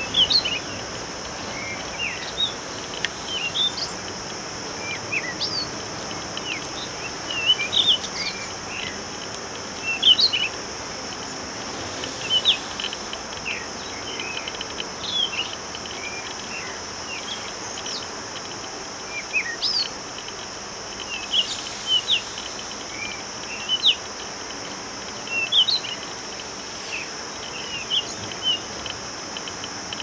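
Birds chirping in short, scattered calls, a few every couple of seconds, over a steady high-pitched insect drone.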